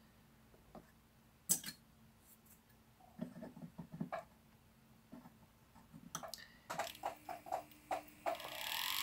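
Light clicks and taps of a hand-held rotary drill's handpiece and a brass plate being set against a wooden bench pin. Near the end the drill, fitted with a 1.6 mm bit, starts up with a whine that rises as it begins drilling into the brass plate.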